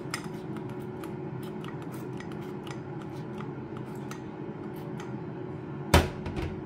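Hand-pumped oil sprayer being worked over a plate of raw potato sticks: a run of short clicks and brief spritzes, coating the potatoes with a thin mist of oil before air-frying. About six seconds in there is a single loud knock of something set down hard. A steady low hum runs underneath.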